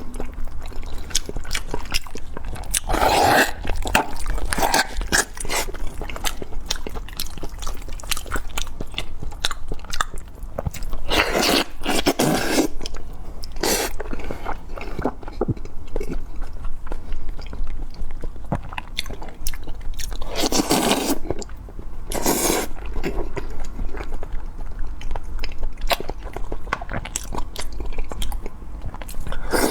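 Close-miked eating: a person biting and chewing food with crisp crunches and wet mouth clicks, and several louder bursts of crunching scattered through.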